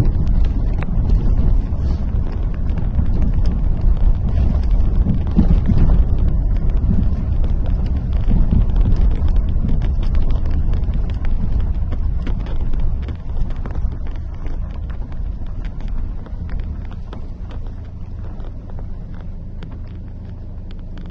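Car driving slowly over a rough, rubble-strewn road, heard from inside the cabin: a steady low rumble of engine and tyres with scattered small clicks and rattles. It grows quieter about two-thirds of the way through.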